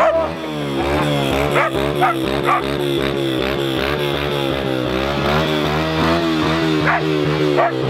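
Border collie barking excitedly, a few short barks spread through, over a steady wavering pitched drone.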